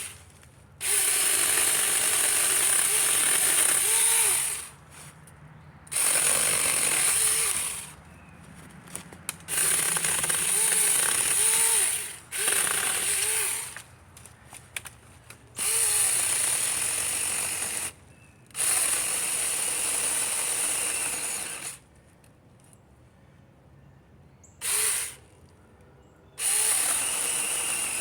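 Cordless 24-volt mini chainsaw with a 6-inch chain running in repeated bursts of one to four seconds as the trigger is squeezed and released, its whine dipping in pitch under load as it cuts through wood.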